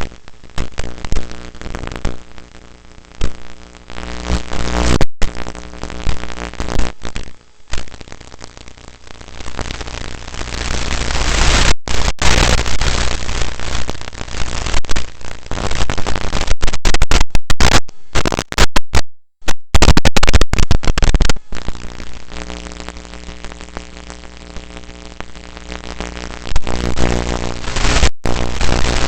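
Electronic background music with steady sustained tones and loud noisy stretches, cutting out abruptly for a moment several times.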